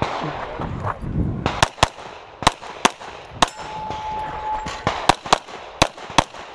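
Rapid pistol fire from a SIG P320-based pistol fitted with a Grey Guns Lockwood slide: about ten shots, mostly in quick pairs. The shots begin about a second and a half in, with a short pause in the middle.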